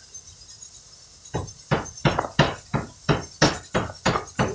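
A quick, regular series of knocks or slaps, about three a second, starting about a second and a half in.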